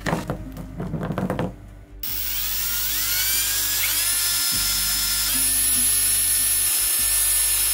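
Cordless drill starting about two seconds in, its motor whine rising in pitch and then holding steady, stepping up again a couple of times, as the bit drills into a miniature dragon model.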